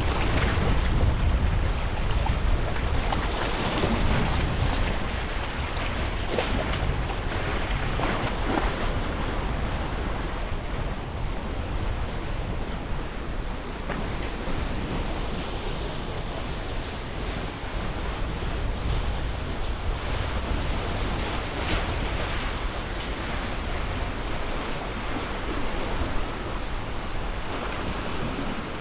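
Lake waves splashing and lapping, driven by a strong wind that rumbles on the microphone.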